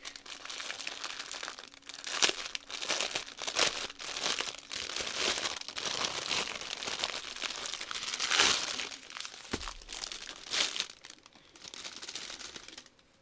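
Clear plastic wrapping crinkling and crackling as hands unwrap a rolled diamond-painting canvas and a bundle of bagged drills, in irregular crackles with a few sharper spikes, dying down near the end.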